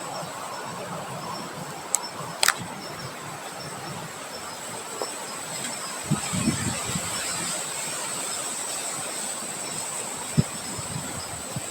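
Wind blowing outdoors as a steady rushing noise, with low buffeting swells on the microphone about six to seven seconds in and again near the end. A couple of sharp clicks come early, over a thin, steady high-pitched tone.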